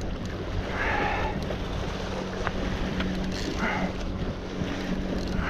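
Wind buffeting the microphone and sea water washing against shoreline rocks, with a steady low hum underneath.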